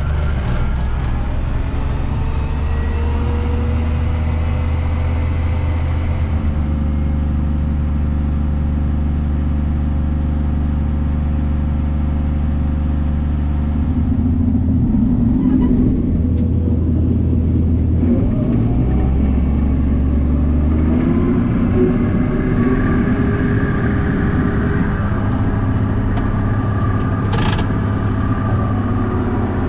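John Deere 7600 tractor's diesel engine running, heard from inside the cab, steady at first, then changing in sound past the middle with its pitch rising in places. A short sharp sound near the end.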